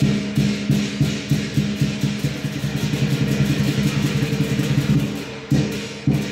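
Live lion dance percussion: a drum struck with hand cymbals crashing along on the beats. The strikes quicken into a fast roll through the middle, then slow again near the end.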